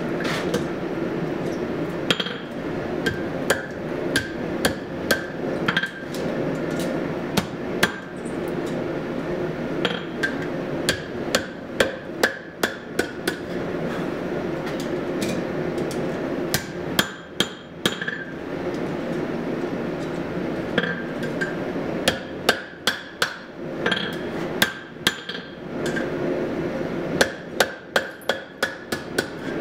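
Blacksmith's hammer striking a red-hot horseshoe on the anvil, bending it into a heart shape. The blows come in quick runs with pauses between them, and the anvil rings briefly on each one. A forge runs steadily underneath.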